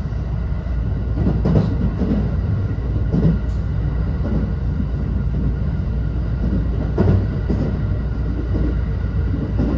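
Cabin running noise of a JR West 321 series EMU's trailer car, which has no traction motors: a steady low rumble of the wheels on the rails with no motor whine, broken by a few knocks.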